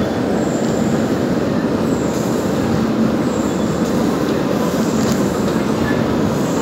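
Cement-bag truck-loading belt conveyor running, a steady loud mechanical rumble of belt and rollers. A faint high squeal comes back about every one and a half seconds.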